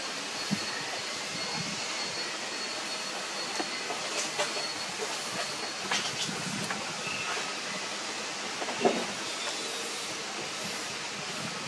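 Puppies nursing from their mother, with soft scattered suckling clicks and shuffling over a steady background hiss, and a single sharper knock about nine seconds in.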